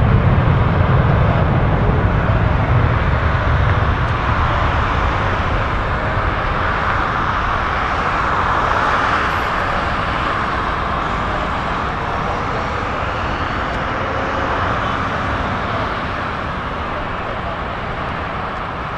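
Boeing 737-800's CFM56-7B turbofans at takeoff power during the takeoff roll: steady jet noise that slowly fades as the aircraft moves away down the runway, its low rumble dying down over the first few seconds.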